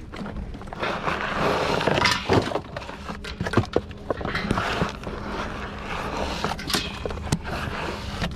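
Magnet-fishing gear being handled: clattering and rustling with many short, sharp knocks.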